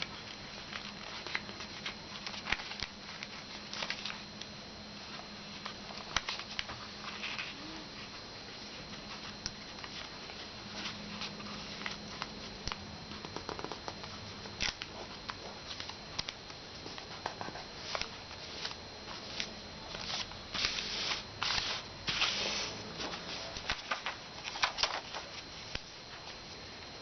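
Sheet of paper rustling and crinkling as it is folded and creased by hand: irregular short rustles and taps, busier in the second half, over a faint steady high whine and low hum.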